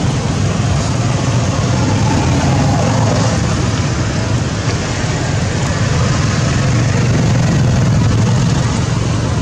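Steady, loud background rumble with a hiss over it, unbroken throughout, with no distinct events standing out.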